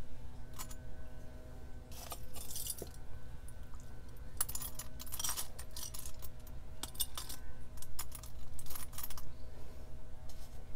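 Antique metal jewelry chains and pendants jingling and clinking in several short bursts as they are piled onto a metal-topped digital scale.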